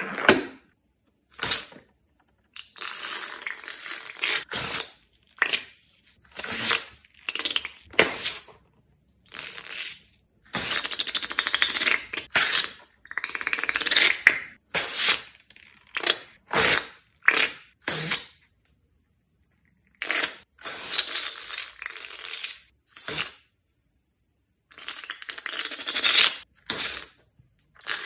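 Slime being squeezed out of balloons into a glass bowl, in a run of short noisy bursts about one to two seconds each, separated by abrupt silent gaps.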